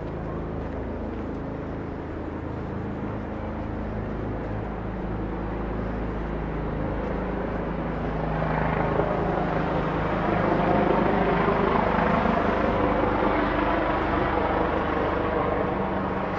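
An engine running with a steady low hum, growing louder from about eight seconds in and easing off near the end, as something motorised passes.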